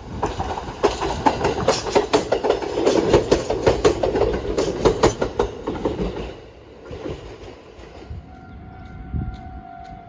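Train passing close by, its wheels clacking quickly and loudly over the rail joints for about six seconds before fading. A steady tone comes in about eight seconds in.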